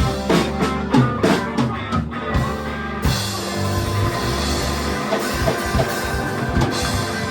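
A live blues band, with electric guitar, bass and drum kit, playing loud. A run of drum hits gives way about three seconds in to a sustained, ringing chord under a cymbal wash.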